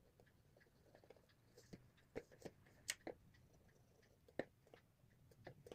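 Black pen tapping and scratching on paper while inking a drawing: faint, irregular little taps and scratches, about half a dozen sharper ones spread through.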